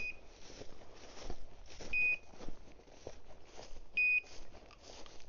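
Bird dog's beeper collar in point mode: a short, high beep every two seconds, three in all, signalling that the dog is standing on point. Rustling in the cover runs underneath.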